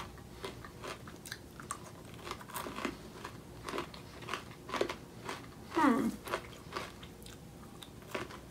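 Close-up crunching and chewing of hard, cocoa-and-caramel-glazed popcorn, a run of crisp irregular crunches. About six seconds in there is a short falling hum from the eater.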